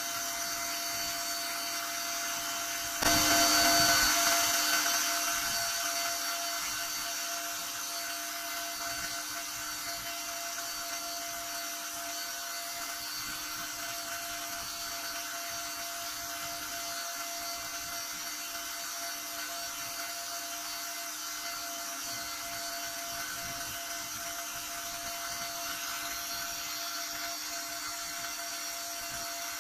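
A small electric motor whirring steadily with a few thin steady whining tones. It jumps louder about three seconds in, then eases back over the next few seconds to a steady level.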